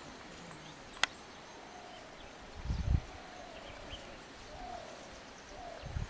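Quiet outdoor nature ambience with faint, repeated bird calls and chirps over a soft hiss. A single sharp click comes about a second in, and a few low thumps come just before the three-second mark.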